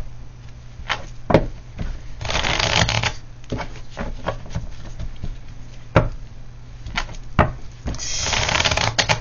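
Tarot cards being handled and shuffled on a table: scattered light taps and clicks, with two short bursts of shuffling about two seconds in and again near the end.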